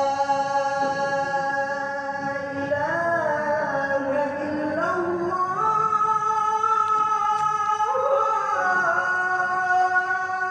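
A man's voice chanting a slow, melismatic Islamic call or recitation in long held notes that glide to new pitches every few seconds.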